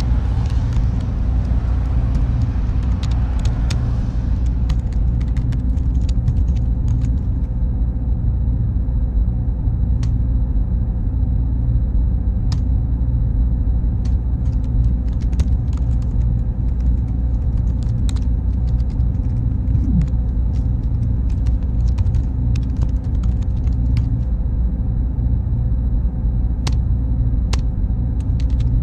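Steady low drone of computer servers, with scattered computer-keyboard keystrokes. A car passes during the first few seconds, and a thin high electronic whine comes in about seven seconds in and stops near the end.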